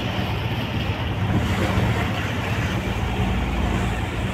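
Steady drone of a boat's engine under the rush of water and wind buffeting the microphone.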